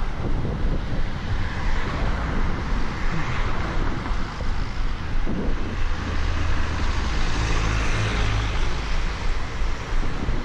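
Wind buffeting the microphone over road traffic passing close by. A heavier vehicle's engine drones past from about six seconds in.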